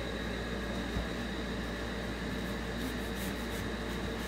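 Steady room hum and hiss with several constant tones, and a single faint knock about a second in.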